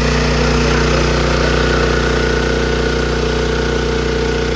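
Small engine-driven water pump running steadily, pumping pond water out through fire hose.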